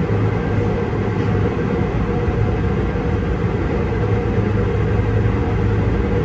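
A steady low engine rumble with a constant hum that holds its pitch throughout.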